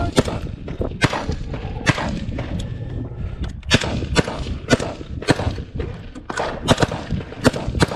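Rifle fire from several shooters: irregular single shots, about two a second, some close and loud and others fainter.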